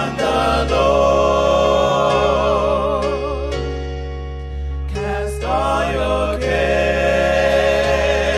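Gospel praise singing: several voices hold long notes with a wavering vibrato over electronic keyboard accompaniment. There are two long phrases, with a short break about five seconds in.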